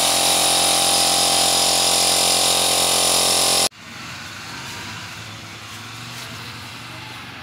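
Handheld electric paddle mixer running steadily at full speed, whipping foam into cement slurry for cellular concrete, with a constant whine; it stops abruptly about three and a half seconds in. Then a much quieter stretch with a faint low hum while wet slurry is poured by hand.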